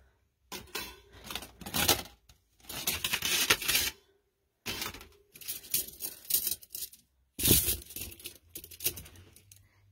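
Parts of a Kcomotee folding campfire grill being taken apart and folded down by hand: thin metal panels and wire rods clattering, scraping and clinking in short bursts with brief pauses, loudest about seven and a half seconds in.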